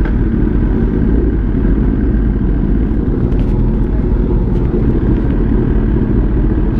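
Motorcycle on the move: a steady, loud low rumble of wind on the microphone, with the engine running underneath.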